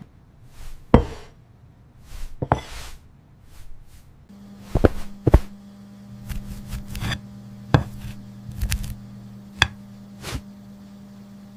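Kitchen food-preparation sounds: irregular sharp knocks and clatters of utensils on a cutting board. A steady low hum joins about four seconds in.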